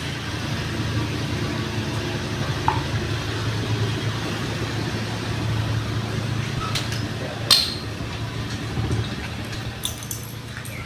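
A steady low hum that fades out about nine seconds in, with a few sharp light clicks of small plastic toy pieces being handled.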